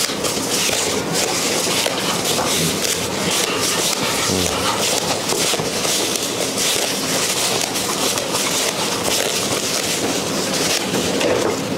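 Crumpled tissue paper lining a whelping box rustling and crackling steadily under a Rottweiler in labour as she shifts, turns and squats.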